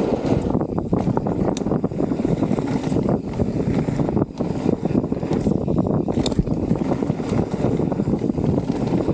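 Transition Spire mountain bike descending a dirt jump trail at speed: wind rushing over the microphone, with tyre rumble and rattle from the bike. There are a couple of sharp clicks, about one and a half seconds in and again about six seconds in.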